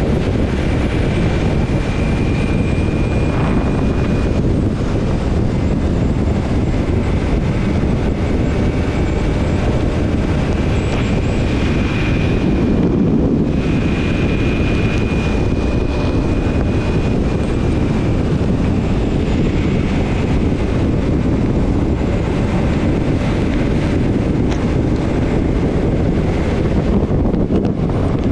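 Steady wind rush and engine drone of a motorcycle riding at highway speed, with a faint high whine that comes and goes.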